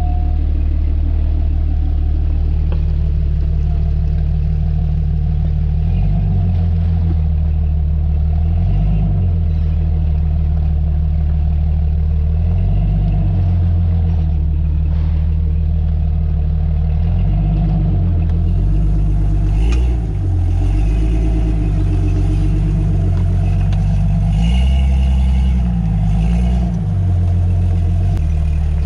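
Steady low rumble of a vehicle's engine and road noise while driving, with the engine note shifting now and then.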